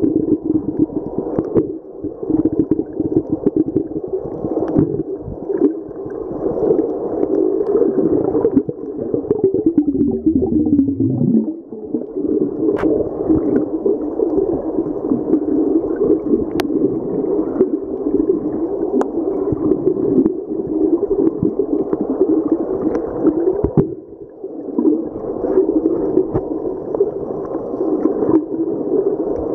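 Muffled underwater ambience picked up by a submerged camera: a steady low rushing, gurgling water noise, with a pitch sliding downward about ten seconds in and a few faint sharp ticks later on.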